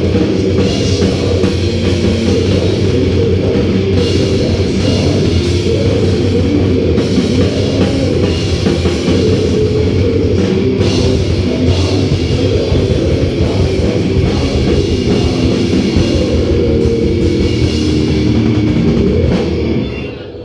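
Heavy metal band playing live: distorted guitars over a drum kit, loud and steady, the music falling away near the end.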